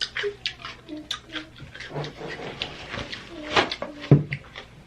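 Close-up mukbang eating sounds from a crawfish seafood boil: a run of wet smacks and clicks as the food is chewed, with a few short murmured vocal sounds in between.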